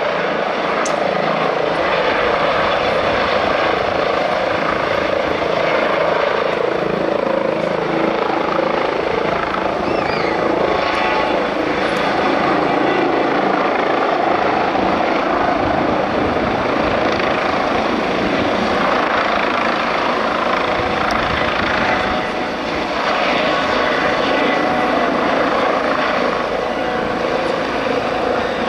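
Air ambulance helicopter, a twin-turbine Eurocopter EC135, running loud and steady: the thrum of the rotor blades and the whine of the turbines as it hovers and climbs away.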